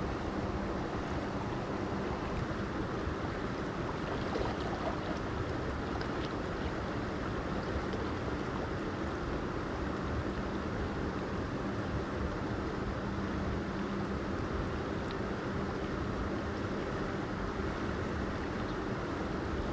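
Mountain creek rushing steadily over rocks, an even watery wash with no breaks.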